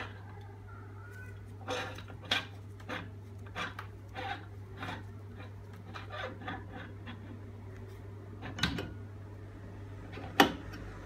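Metal machine parts (a steel sprocket on its bearing and an aluminium tube) being handled and fitted by a gloved hand: a string of small clicks and knocks, with two sharper, louder knocks about eight and a half and ten seconds in, over a steady low hum.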